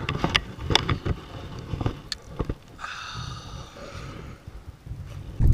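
Scattered clicks and knocks of a fishing rod and tackle being handled in a plastic kayak, then a brief hiss about three seconds in, over a low rumble.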